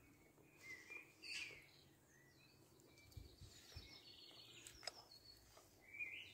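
Faint woodland birdsong: scattered short chirps and a brief trill. A few soft low thuds and a single click come in the middle.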